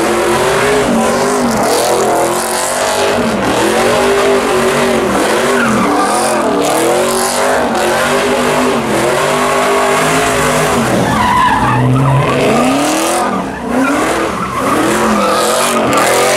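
Car doing donuts: the engine revs up and down over and over while the spinning rear tyres screech on the pavement.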